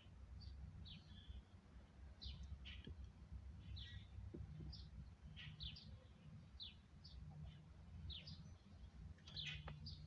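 Faint, short chirps from small songbirds, about two a second and irregularly spaced, over a low steady rumble.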